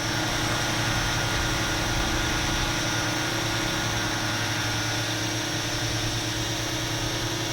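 Parrot Anafi quadcopter hovering in place, its propellers making a steady hum with several fixed tones.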